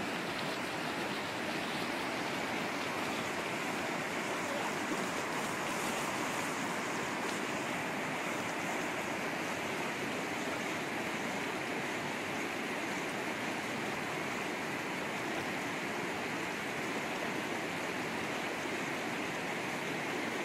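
Fast, shallow river current rushing and churning at the foot of a concrete dam, with water spilling down the dam face: a steady, unbroken rush of water.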